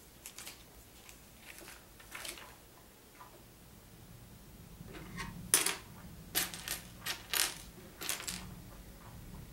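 Small plastic Lego pieces clicking and clattering against each other and the tabletop as they are handled, a few light clicks at first, then a quick run of sharper clicks in the second half.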